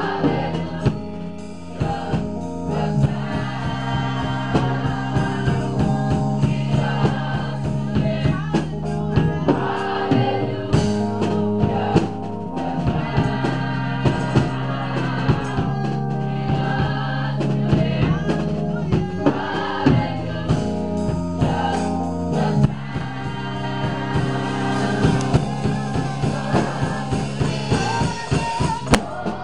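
Gospel choir singing with band accompaniment: held chords over bass and drum kit.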